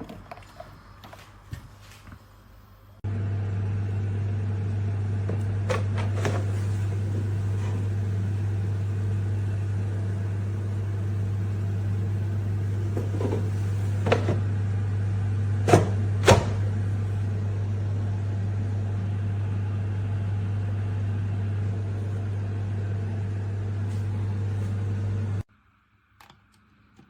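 Air fryer running with a steady low hum that switches on about three seconds in and cuts off abruptly near the end, with a few sharp clicks along the way.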